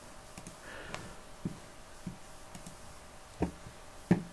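Plastic clips of an LED TV's frame clicking as a screwdriver pries along its edge: a few light clicks, then two louder snaps near the end.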